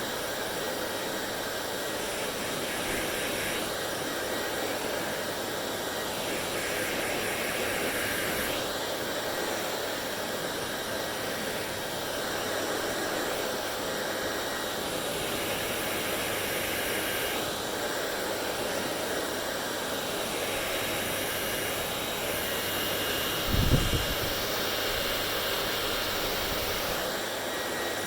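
Hair dryer blowing steadily, its airy rush shifting in tone every few seconds. A brief thump about three-quarters of the way through.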